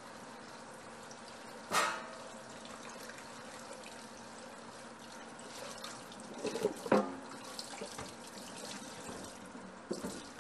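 Kitchen tap running steadily into a sink, with a sharp ringing clink about two seconds in and a cluster of knocks around seven seconds.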